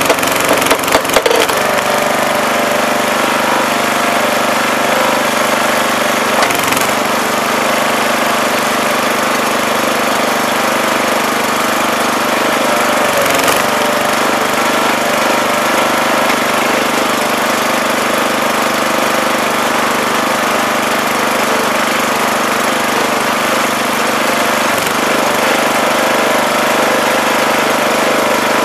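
A wood splitter's small 5 hp gas engine runs steadily, driving a newly replaced two-stage hydraulic pump as the wedge is pushed down through oak rounds. A few sharp cracks of splitting wood come about a second in.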